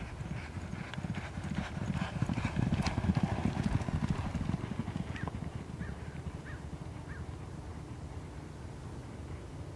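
Hoofbeats of two racehorses galloping on a dirt track, growing louder as they pass close, loudest about three seconds in, then fading as they move away.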